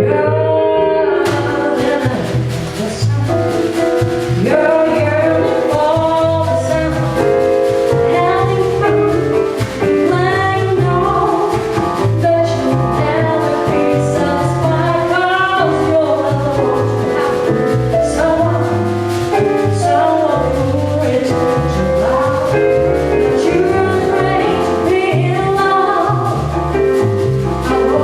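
Live jazz performance: a woman singing the melody over piano and bass accompaniment.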